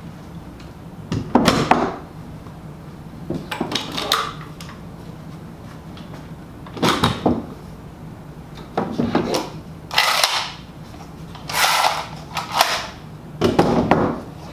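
Parallel bar clamps being set into and slid along a wooden clamp rack one after another: a series of short clunks and scraping knocks, about eight in all, each well apart from the next.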